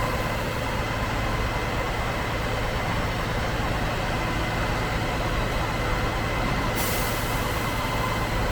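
Concrete pump truck's diesel engine running steadily with a constant whine. A high hiss comes in near the end.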